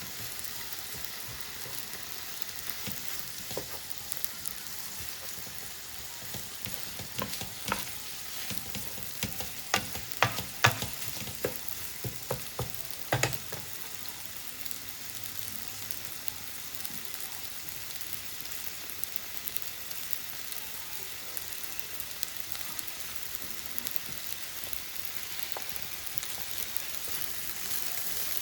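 Yakisoba noodles sizzling steadily in a hot frying pan as they are stirred and tossed. Between about 7 and 14 seconds in, a run of sharp clacks comes from a utensil knocking against the pan.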